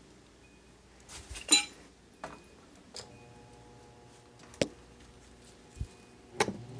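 Scattered clicks, knocks and clinks of the microwave oven fan and its plug being handled and plugged in, the loudest about a second and a half in. A faint steady hum comes in about three seconds in.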